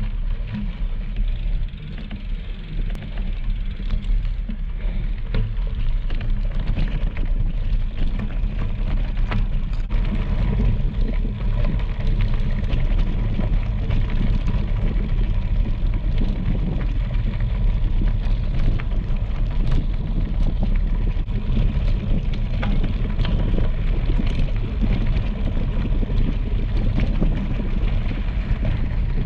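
Wind buffeting the microphone of a handlebar-mounted action camera as a bicycle rolls along a gravel trail, a steady low rumble. Tyres crunch over the gravel, with frequent small ticks and rattles from the bike.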